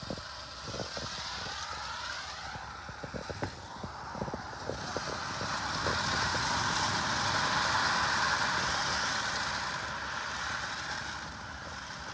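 Water gushing from a tank truck's outlet into a plastic-lined channel, a steady rush that swells midway and eases off near the end. Scattered short knocks and clicks sound in the first few seconds.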